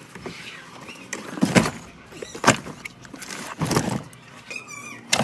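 Things being loaded onto a car's back seat through the open rear door: several separate thumps and knocks, and a short rasping sound about four and a half seconds in.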